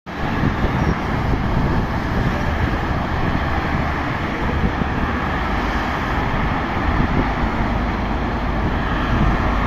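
Steady noise of heavy multi-lane highway traffic, cars and lorries passing below, with wind noise on the microphone.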